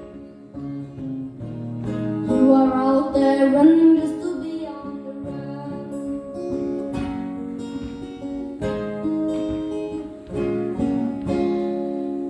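Acoustic guitar playing the closing instrumental bars of a folk song, strummed chords under long held notes.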